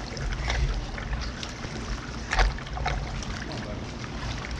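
Pool water sloshing and splashing as people wade in circles through it to stir up a whirlpool current, with a low rumble on the microphone. One sharper splash comes about two and a half seconds in.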